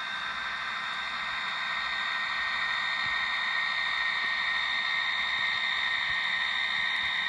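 ESU LokSound decoder's EMD diesel prime-mover sound playing through an HO-scale SD40-2 model's small speaker, running steadily in a raised throttle notch, with a steady high whine over the engine noise.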